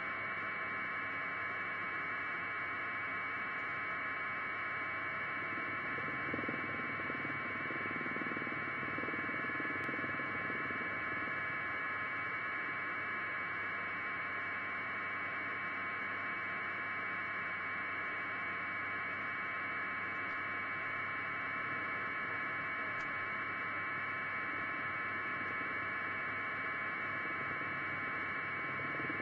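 Steady hiss with a constant hum, unchanging throughout and without voices.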